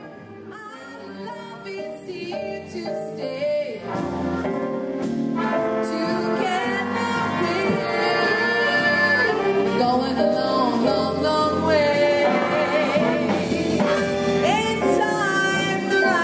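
Live dance band playing a song: a woman sings lead over saxophones, the band growing fuller and louder about four seconds in.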